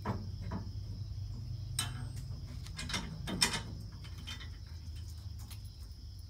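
Steel trailer-hitch ball mount being slid into the end of a hitch extension bar: a few metal clicks and clanks, the loudest about three and a half seconds in. A steady insect chirring runs in the background.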